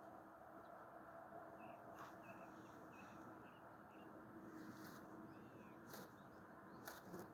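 Near silence: quiet open-air ambience with a small bird's faint, short, high chirps repeating about twice a second, and a few soft clicks near the end.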